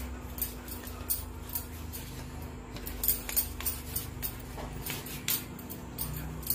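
Boiled potatoes being grated by hand on a stainless steel grater resting on a steel plate: irregular scrapes and light metallic clicks, over a steady low hum.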